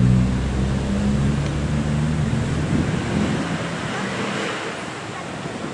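A motor vehicle engine running with a steady low hum that fades out about halfway through, leaving a steady outdoor hiss.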